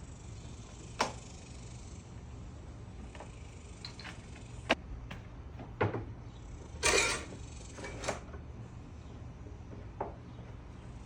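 Scattered sharp knocks and clicks, about six over several seconds, with a longer rattling clatter about seven seconds in, over a steady low hum.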